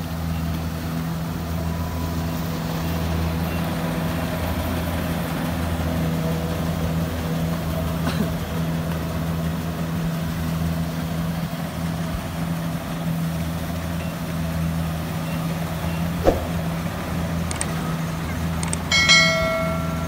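Kubota combine harvester's diesel engine running steadily. Near the end there is a short bell-like chime.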